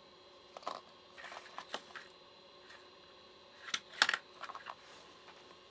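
Small plastic Chemtronics Soder-Wick spools clicking and clattering as they are handled and set down on a tabletop. The light clicks come in two clusters, the loudest about four seconds in.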